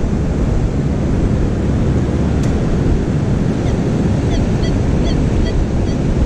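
Surf washing in and wind buffeting the microphone, a steady rushing noise. From about three and a half seconds in, a run of short high chirps repeats about twice a second over it.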